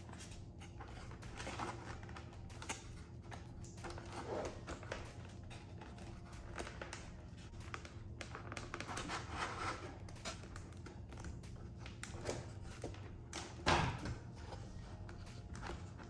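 Servo wires and foam airframe parts of an RC model jet being handled as the wires are fed through a hole in the fuselage: scattered small clicks, taps and rustling, with one louder knock near the end.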